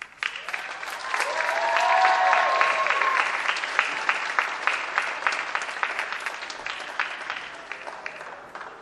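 Audience applauding at the end of a dance performance: many hands clapping, swelling over the first two seconds and slowly dying away, with a voice cheering briefly about a second in.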